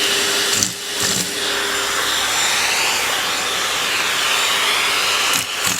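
Vacuum cleaner motor running steadily, dipping briefly about a second in, with a few short knocks near the end.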